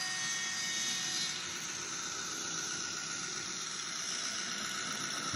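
Brawa Gravita N-scale model diesel locomotive's sound decoder playing its engine-running sound: a steady, hissy drone.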